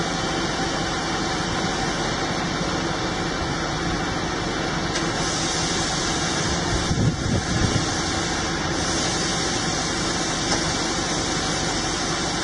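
Large industrial milling machine running with steady mechanical noise, with a short cluster of louder low knocks about seven seconds in.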